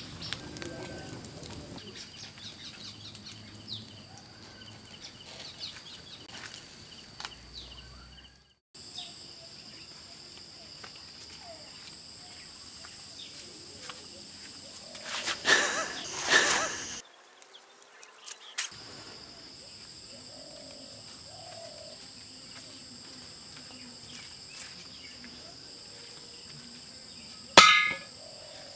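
A wood fire crackling under the roasting goat for the first several seconds, then steady shrill insect calls. Louder handling noise of wooden planks comes around the middle, and a sharp loud crack near the end.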